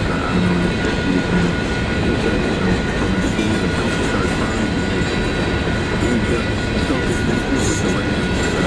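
Empty coal train cars rolling past at a grade crossing, a steady rumble and clatter of wheels on the rails with a few faint high wheel squeals. The crossing bell keeps ringing as a steady high tone over the top.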